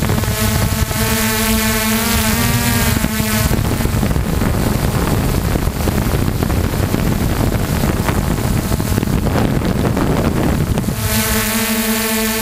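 Electric radio-controlled aircraft in flight, heard from its onboard camera: a steady motor-and-propeller whine that bends in pitch about two seconds in. For several seconds in the middle it is drowned by wind rushing over the microphone, and the whine comes back near the end.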